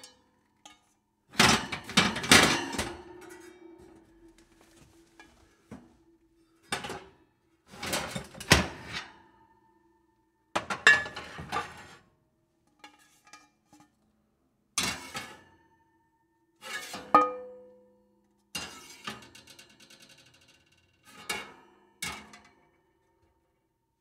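Metal oven pans clattering and knocking against each other in a series of separate bursts, the loudest and busiest about a second in. Some hits leave a short metallic ring.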